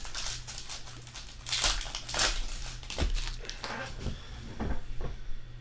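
Foil trading-card pack wrappers crinkling in a series of sharp, irregular rustles as packs are torn open and the cards handled. The rustles thin out near the end.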